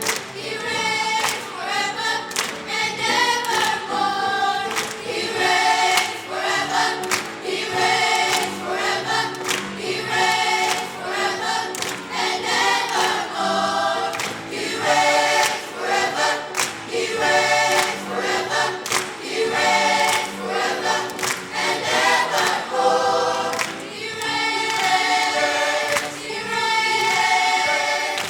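Choir singing a gospel song, many voices together in sung phrases.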